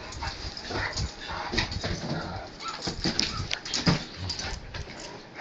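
Great Dane whimpering at a Zhu Zhu toy hamster, with scattered short knocks and scrapes as it paws and noses around.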